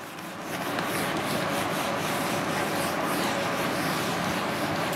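Whiteboard duster rubbed back and forth over a whiteboard, wiping off marker writing: a steady scrubbing sound that builds up over the first second and then holds even.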